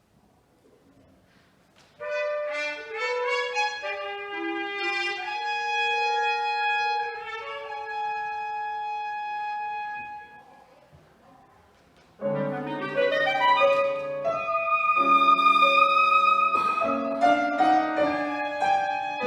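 Clarinet, trumpet and piano trio playing a contemporary chamber piece. After a near-silent start, a single wind melody plays for several seconds and stops. About twelve seconds in, the whole ensemble comes in loudly, with low piano notes under the winds.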